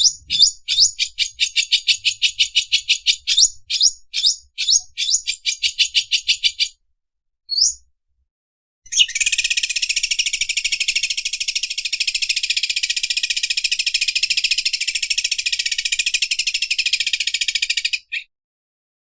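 Greater green leafbird (cucak ijo) singing its 'overlock machine' song type. It opens with a run of rapid high chirps that quicken into fast strokes, then gives a brief rising note. After a short pause comes about nine seconds of dense, rapid rattling trill that stops abruptly.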